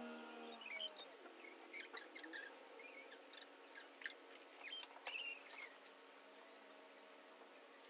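Quiet room: faint scattered clicks and light squeaks over a steady low hum, with a held pitched tone fading out in the first half second.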